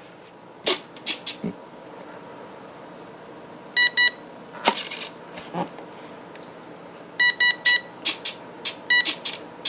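Electronic speed controllers of a twin-motor RC plane beeping in short identical tones: a pair, then a quick run of three or four, then single beeps. They keep beeping during an attempted throttle calibration because the ESCs are not plugged into the power module's output. A few sharp clicks come in between.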